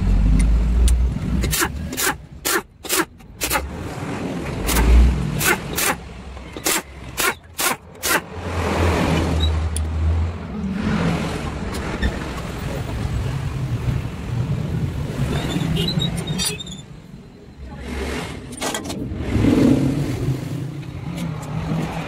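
A string of sharp metal taps and clicks from hand tools on a stripped two-stroke motorcycle engine's aluminium crankcase, about a dozen in the first eight seconds, over a low rumble of passing vehicles that swells and fades several times.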